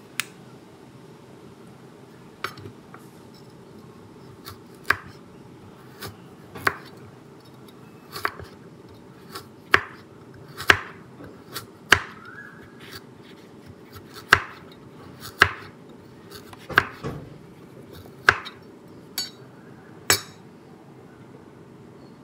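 Kitchen knife slicing a carrot on a wooden cutting board: sharp, irregular knocks as the blade meets the board, about one a second, over a steady low hum.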